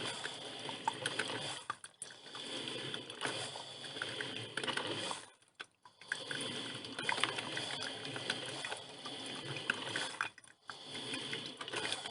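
Drip filter coffee machine brewing: hot water bubbling and sputtering up through the machine with a crackling, clicking patter. It comes in stretches broken by short lulls, about two, five and ten seconds in.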